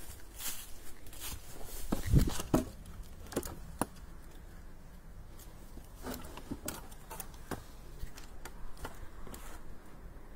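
Footsteps crunching and rustling through dry fallen leaves, an uneven run of crackles with a couple of heavier thuds about two seconds in.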